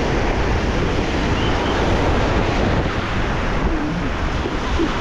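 Wind buffeting a phone's bare microphone over the steady wash of breaking ocean surf.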